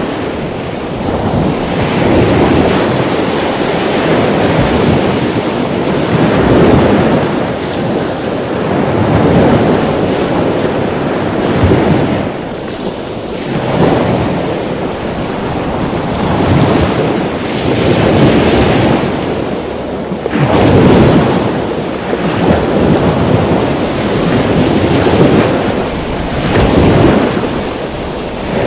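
Ocean surf washing in with wind buffeting the microphone: a loud, rushing noise that swells and eases every few seconds.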